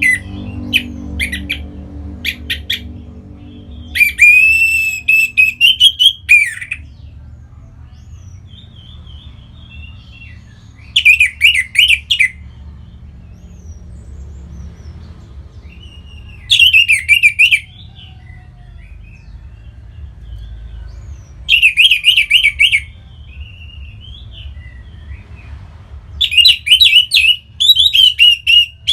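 Orange-headed thrush singing in short warbled phrases, one about every five seconds, with a few short notes at the start.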